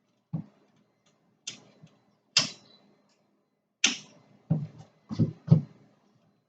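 A string of about seven sharp clicks and knocks, unevenly spaced, with the last few coming close together near the end.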